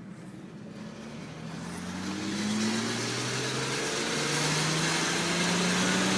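Audi B5 S4's 2.7-litre twin-turbo V6 accelerating under load in second gear, its pitch climbing and growing louder. This is a test pull for a suspected failing turbo that left a puff of white smoke.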